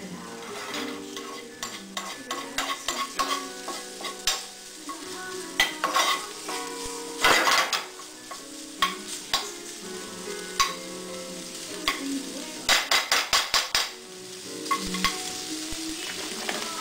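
Sliced sausage sizzling in a nonstick frying pan while a spoon stirs it, with many clicks and scrapes of the spoon against the pan. About thirteen seconds in comes a quick run of about seven taps.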